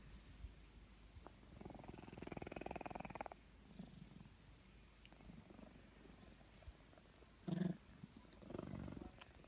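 Cat snoring in its sleep, faint. There is one long fluttering breath about two seconds in, softer breaths after it, a short louder snore about three-quarters of the way through, and another breath near the end.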